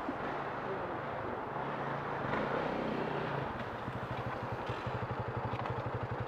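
Single-cylinder four-stroke dirt bike engines idling. About halfway through, a rapid, even low chugging beat comes in and holds steady.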